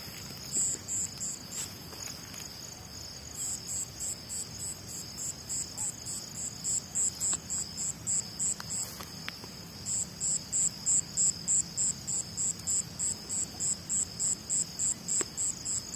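Night insects: a cricket chirping in a steady rhythm of about three high chirps a second, pausing briefly twice, over a continuous high trill from other insects.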